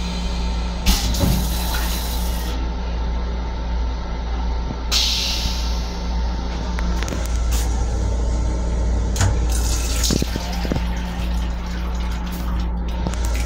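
Steady low rumble and hum of an M7 electric railcar running, heard inside its restroom, with several short bursts of water hissing, the toilet's flush and then the sink faucet running near the end.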